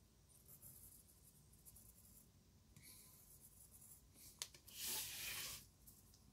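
Graphite pencil drawing lines on lined notebook paper: faint, short scratching strokes. About four and a half seconds in there is a sharp click, then a louder rub lasting under a second.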